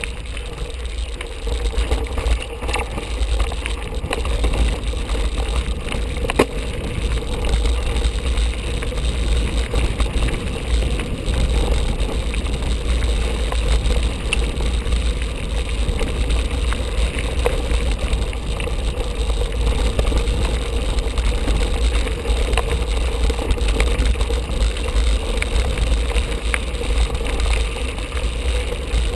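Mountain bike rolling over a rough gravel track, with a steady low rumble of wind and tyre noise on the microphone and scattered clicks and rattles from the bike over the stones.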